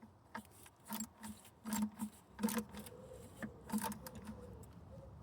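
A small spanner working a bolt on a car engine in short strokes, giving a series of irregular sharp metallic clicks and taps, some in quick pairs.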